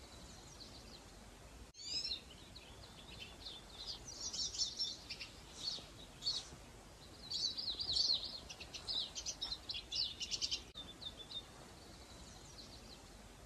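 Songbirds chirping and singing in runs of short, high notes, busiest through the middle, over a faint steady hiss.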